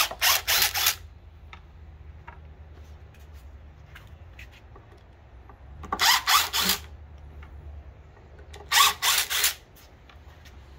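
Cordless impact driver backing screws out of a wooden bench upright, in three short, choppy bursts: one at the start, one about six seconds in and one about nine seconds in.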